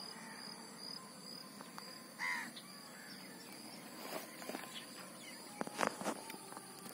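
Footsteps crunching and rustling through dry leaf litter and twigs, with a few sharp snaps in the second half. A bird calls once, briefly, about two seconds in.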